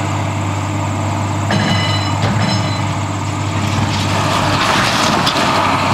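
John Deere hydraulic excavator's diesel engine running steadily under load as it tears into the building, with a short high metallic screech about a second and a half in. The noise of breaking material swells toward the end.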